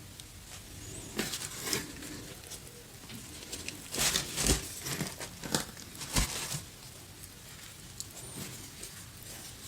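Close-miked eating sounds of pizza being bitten and chewed: irregular crackling bites and mouth sounds, the loudest bursts about four seconds in and again about six seconds in.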